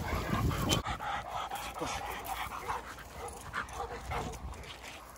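Dogs barking now and then while running and playing.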